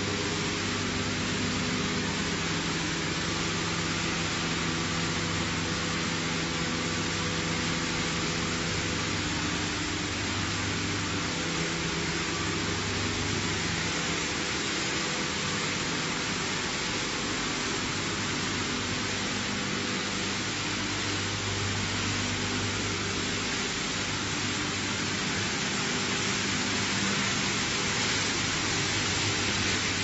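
PET bottle washing and recycling line running: a steady machinery hum with several droning tones under a broad, even hiss.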